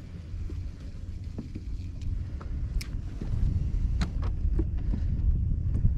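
Low rumble of a fishing boat sitting on the water with some wind on the microphone, growing louder about halfway through, with scattered light knocks and clicks.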